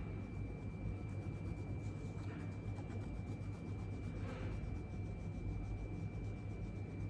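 Colouring pencil shading on paper: soft scratching strokes, swelling about two seconds in and again about four seconds in, over a steady low hum and a faint high whine.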